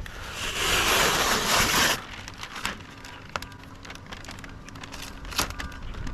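Graco Magnum X7 airless paint sprayer gun spraying a single burst of about a second and a half, a loud even hiss that cuts off suddenly when the trigger is released, followed by a few faint clicks.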